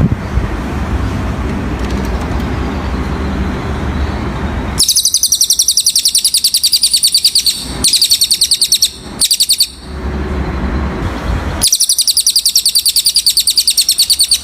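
Cililin bird singing a loud, high, rapid trill of evenly repeated notes, in three or four long runs with short breaks. Before it starts, about five seconds into the sound, there is only a low rumble of road traffic.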